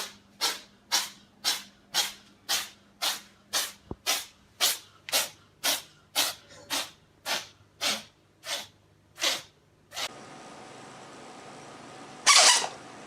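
A cat sneezing in a fast fit of about twenty short sneezes, roughly two a second. Then comes a steady background hiss with one single, louder sneeze near the end.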